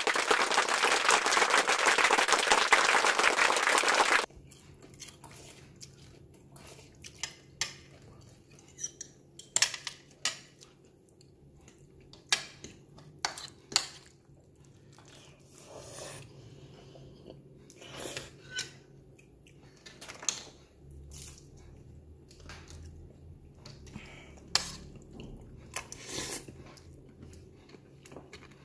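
A loud rushing hiss for about the first four seconds that cuts off suddenly, then irregular clicks and taps of a metal fork against a plastic bowl of instant noodles, with chewing.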